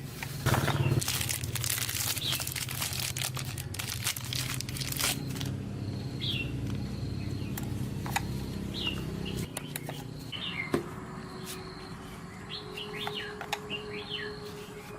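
Crinkling, rustling and clicking for about the first five seconds over a steady low hum, which stops about nine and a half seconds in. Birds chirp in short falling notes through the second half.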